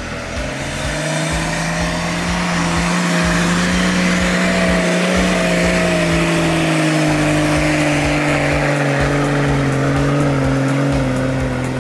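A 4x4's engine held at high revs under load. The note comes up about half a second in, climbs a little, then sinks slowly through the second half.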